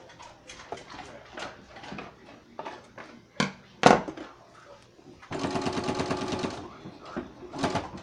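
Electric sewing machine stitching in a short fast run of needle strokes about five seconds in, with a brief burst near the end. Before that, fabric is handled and pivoted under the needle at a corner, with two sharp clicks.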